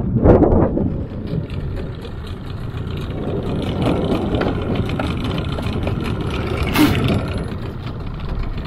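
Boat's outboard motor running steadily, with a single short knock about seven seconds in.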